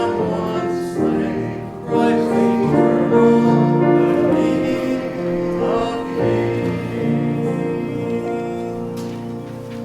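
Hymn sung with instrumental accompaniment in long held chords, dying away near the end as the hymn closes.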